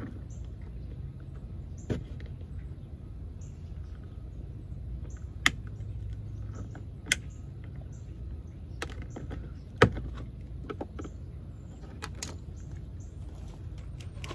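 Plastic gift card prying at the puddle light lamp in the bottom edge of a 2021 VW Atlas Cross Sport front door: about eight sharp, irregular plastic clicks and snaps, the loudest about ten seconds in, over a low steady background rumble.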